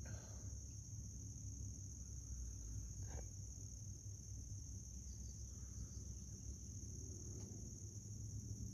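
Crickets chirring as a steady high-pitched drone over a low background rumble, with two faint knocks, one about three seconds in and one near the end.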